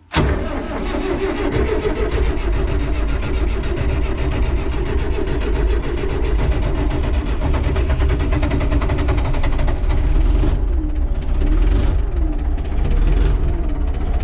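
Renault 651 tractor engine starting abruptly, then running steadily, with a few brief rises and falls in engine speed over the last few seconds.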